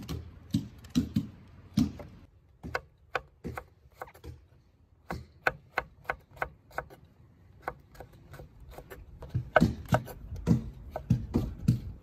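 Kitchen knife slicing shiitake mushrooms on a wooden board: irregular sharp taps of the blade striking the board. They thin out for a few seconds, then come quicker and louder near the end.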